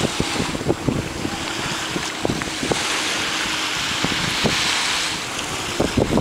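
Wind buffeting the microphone in irregular gusts, over the hiss of small waves washing onto a sand beach, the wash swelling in the middle.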